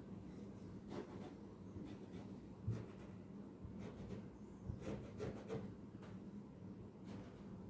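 Faint pencil marking and hands rubbing and smoothing sheer net fabric on a tabletop, with scattered light taps and a small thump about a third of the way in, over a low steady hum.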